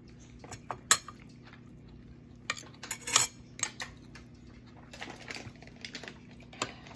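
Metal spoon clinking and scraping against a ceramic plate while scooping rice: one sharp clink about a second in, a busy run of clinks and scrapes in the middle, and lighter taps near the end.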